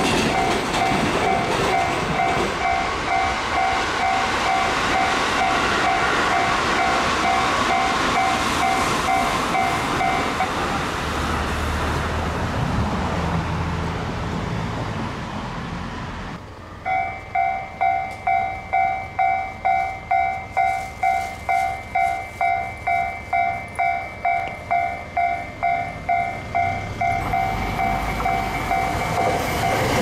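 Level-crossing warning bell ringing in quick two-tone pulses over the noise of a passing Keikyu train. About ten seconds in, the bell stops and the train noise fades. A few seconds later the bell starts again, about two strikes a second, as the crossing closes for the next train, which is heard approaching near the end.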